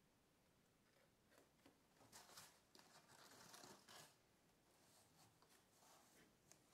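Faint rustling and brushing of folded paper as a modular origami star is handled and set down, loudest between about two and four seconds in, with a few small taps.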